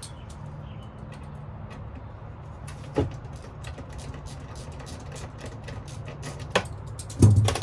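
Hand tool working at the fastenings of a plastic toolbox on a van floor: scattered small clicks and taps, a sharper knock about three seconds in, and a cluster of louder knocks and thumps near the end as the box is worked loose, over a steady low hum.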